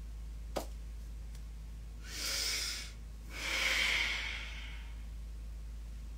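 A person's deep breath in, then a longer, louder breath out that empties the lungs before the breath is held for nauli kriya, the yogic abdominal churning. A short click comes about half a second in.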